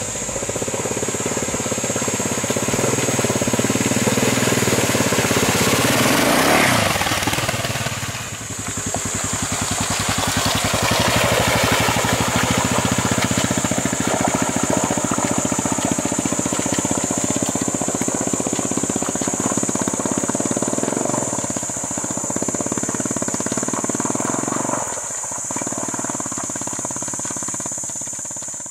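Dual-sport motorcycle engine running as the bike rides through a shallow stream, water splashing. The engine note falls sharply about six seconds in.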